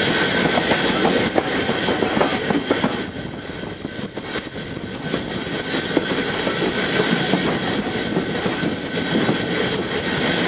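Double-headed steam train of two small tank engines, SECR P class 323 Bluebell and Terrier 55 Stepney, running along the line, heard from close to the locomotive. There is a steady rumble with frequent clicks and clatter of wheels over the rail joints and a steady hiss, briefly quieter a few seconds in.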